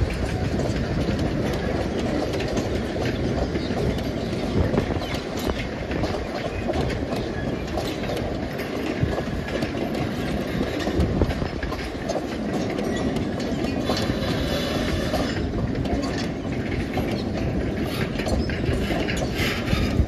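Loaded sugarcane bins of a narrow-gauge cane train rolling steadily past: a continuous rumble of wagon wheels on rail, dotted with many short clicks and knocks.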